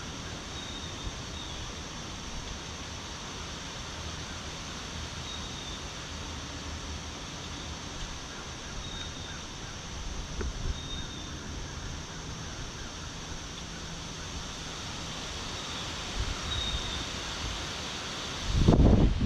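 Outdoor wind ambience on a breezy day: a steady rush with a high hiss underneath and a few brief high chirps scattered through. Near the end a gust hits the microphone with a loud low buffeting rumble.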